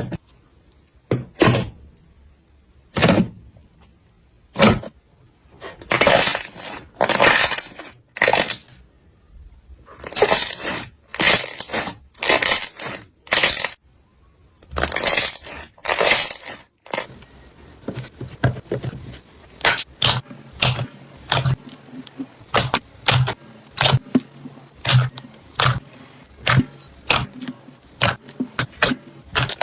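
Slime being pressed and squished by hand, in separate short crunchy bursts roughly a second apart. About 17 seconds in it changes to a quicker run of small crackles and pops.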